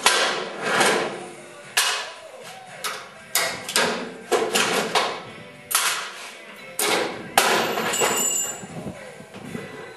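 Steel locking pliers snapping open as their release levers are pulled and clanking as they are taken off a sheet-metal window sill and put down: about seven sharp metal clacks with short ringing tails, irregularly spaced.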